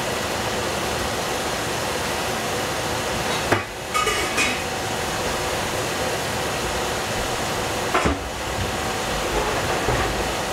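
Steady hiss of green beans cooking in oil inside a covered stainless-steel pot on the stove, with two short knocks about three and a half and eight seconds in.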